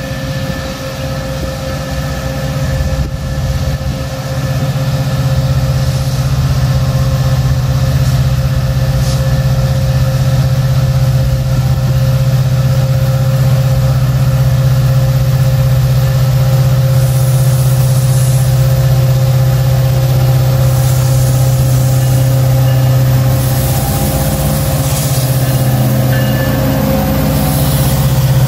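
EMD GT46 diesel-electric locomotive approaching at the head of a freight train, its diesel engine running with a steady low drone that grows louder over the first few seconds and then holds as the locomotive draws close. It passes close by near the end.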